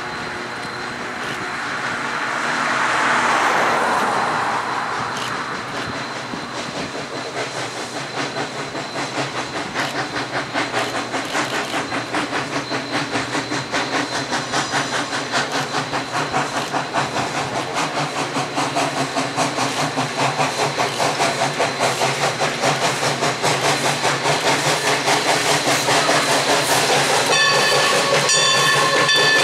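A car passes about three seconds in. Then Everett Railroad #11, a 1920 Mogul (2-6-0) steam locomotive, approaches working a passenger train, its exhaust chuffs coming in an even beat of about two to three a second and growing steadily louder. Near the end its steam whistle blows, several notes sounding together.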